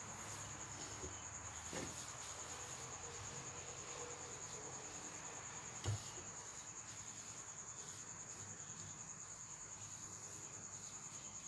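Crickets chirping in a steady high trill, with one light knock about six seconds in.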